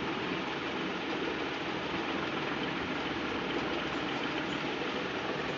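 Steady, even rushing noise with no rise or fall, like the running hum and hiss of a household appliance or falling water.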